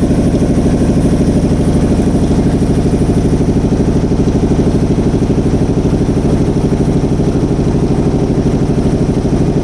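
Boat engine running steadily with a low, even chugging that holds unchanged.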